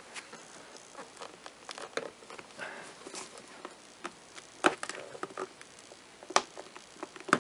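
Gloved hands pressing a Corvette C5 side-mirror glass onto its power-adjust motor: small, irregular plastic clicks and creaks with rustling of the gloves. A few sharper clicks stand out in the second half.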